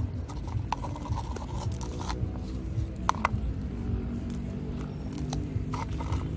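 Cats chewing meat chunks from a plastic bowl, with scattered short clicks and scrapes, over a soft background music bed.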